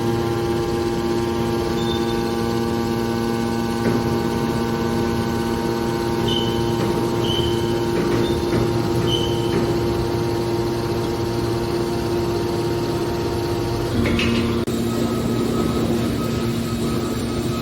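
Metal shear baler's hydraulic power unit running with a steady hum, with a few short high beeps about six to nine seconds in. About fourteen seconds in, a knock comes and the pitch of the hum shifts.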